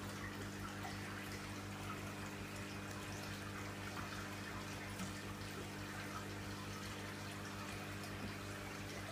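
Aquarium water circulation: a steady trickle and splash of water with a few faint drips, over a constant low pump hum.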